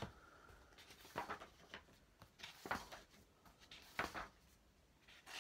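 Pages of a paperback colouring book being flicked through by hand: several short, quiet paper swishes.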